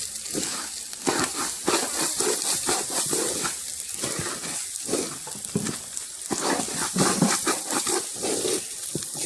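Rice frying in oil in a cooking pot, sizzling steadily, while a spoon stirs and scrapes it in uneven strokes.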